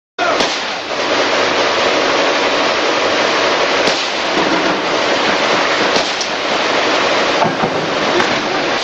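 Steady, loud crackling din of combat gunfire with four sharp cracks a few seconds apart.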